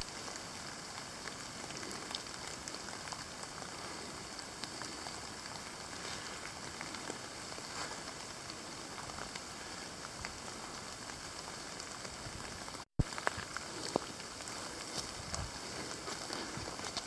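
Steady hiss of light rain falling on the forest leaf litter and rocks. After about thirteen seconds a few soft crunches of footsteps on wet leaves and stones come through over it.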